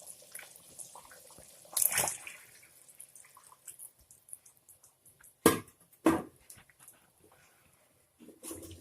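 Tamarind water poured into a pot of just-boiled fish curry, with splashing and dripping. Two sharp knocks come a little past halfway.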